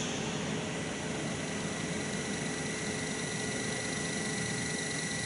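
Steady hum and hiss of machine-shop machinery running, with a steady high whine that joins about two seconds in.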